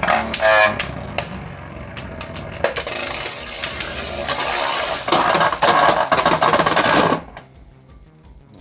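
Beyblade spinning tops clattering and scraping against each other and the stadium walls in a battle: a dense, steady rattle of hits that ends abruptly about seven seconds in.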